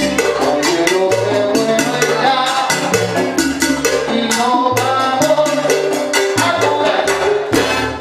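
Live salsa orchestra playing, with two lead vocalists singing over walking bass, piano and a steady pattern of Latin hand percussion and maracas.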